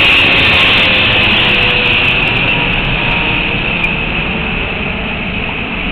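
Steady loud rushing noise, strongest as a high hiss, fading slowly, with a faint tone that glides slowly down. A single sharp tick about four seconds in, a tennis ball struck on a serve.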